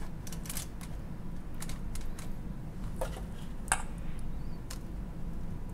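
Scattered clicks and crinkles of aluminium foil and a metal spoon as a creamy topping is spread by hand over halved lobsters, with the sharpest click a little past halfway, over a steady low hum.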